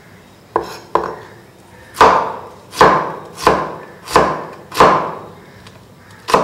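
Chef's knife chopping a red onion on a wooden cutting board: two lighter cuts, then five heavy chops in a steady rhythm about two-thirds of a second apart, and one last chop near the end.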